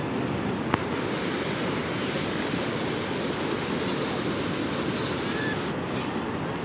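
Steady rushing of sea waves breaking on the shore, mixed with wind buffeting the microphone, with one sharp click under a second in.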